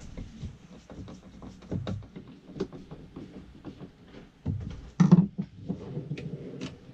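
Plywood board being handled against wooden blocks and the wooden floor: scattered light taps and clicks, with a louder wooden knock about five seconds in.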